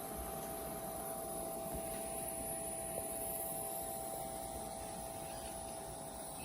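Steady electrical hum with a constant high whine from a Taig CNC mill and its G540 stepper drive, with a tiny click about three seconds in.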